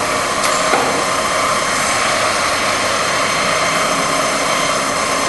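Lodge & Shipley 24 x 78 engine lathe running steadily under power with its spindle at 275 RPM, a constant gear-and-motor drone. There are a couple of faint clicks within the first second.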